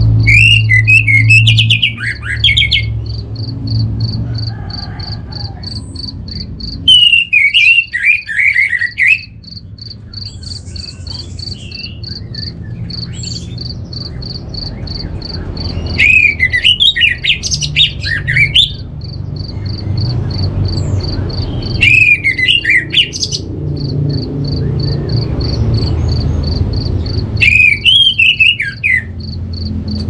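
Orange-headed thrush singing: five loud, rich warbling phrases of a couple of seconds each, several seconds apart. A steady, high, pulsing insect trill runs underneath.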